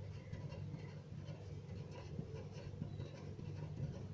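Pen writing on paper: faint, irregular scratching strokes over a low steady hum.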